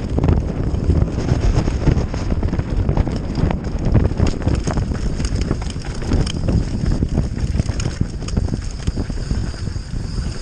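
Full-suspension enduro mountain bike ridden fast down a rough, dry dirt trail: tyres rumbling over ruts and roots, with a constant rattle of quick knocks and clatter from the bike over the bumps.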